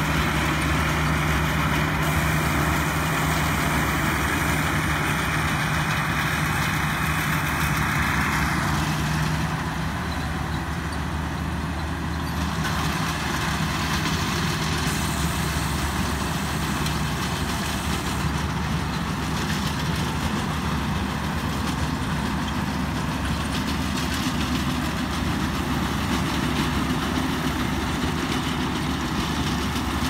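Kaset Phattana rice combine harvester with a Hino 195 turbo diesel engine, running steadily while it harvests. A higher hiss over the engine eases off about nine seconds in.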